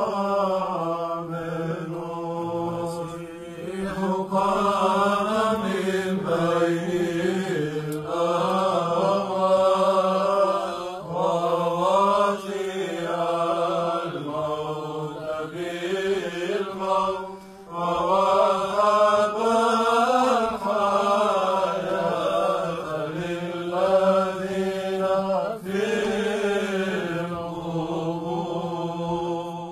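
Orthodox Byzantine chant: a voice sings a melody that rises and falls in long phrases over a steady held drone note, the ison. There is a brief break about halfway through.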